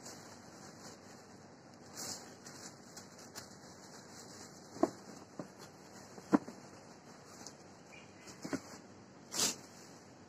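Rustling of a plastic shoe bag and handling of a cardboard shoe box, with a few light knocks, the sharpest about six seconds in.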